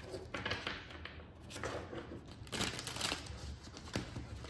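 Tarot cards being shuffled by hand: a few short, irregular papery rustles, the loudest a little past the middle.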